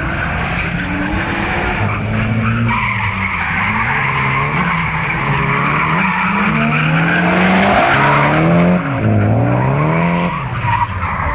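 Drift car sliding with its tyres squealing, while its engine revs rise and fall repeatedly as the throttle is worked through the slide.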